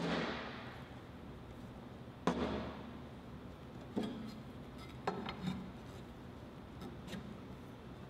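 Steel fixture and stainless exhaust tube knocking on a steel workbench: a sharp ringing clank at the start, another about two seconds in, then lighter knocks and taps as the tube is fitted into the fixture.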